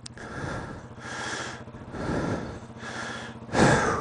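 Yamaha TW200's air-cooled single-cylinder four-stroke engine idling steadily with the fuel tap shut, running on the fuel left in the carburettor. Loud breathy hisses come over it about every second and a half, the loudest near the end.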